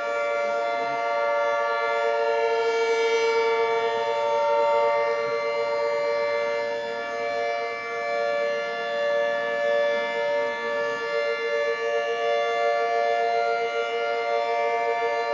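Outdoor civil-defense warning sirens sounding for a severe thunderstorm warning, holding a steady pitch with several tones layered together, swelling and fading a little in loudness.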